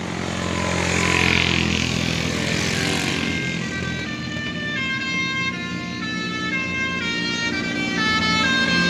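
Tour bus 'telolet basuri' multi-tone musical horn playing a stepping tune over the bus's engine as it passes, growing louder, with a rush of noise about a second in.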